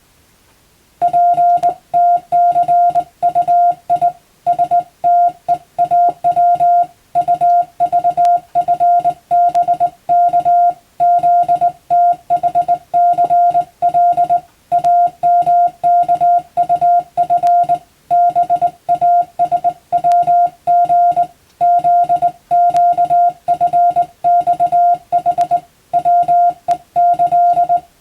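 Morse code (CW) sent as a single steady beeping tone, keyed rapidly on and off in dots and dashes, with short gaps between characters and words. It is English-text telegram sending practice. The tone starts about a second in.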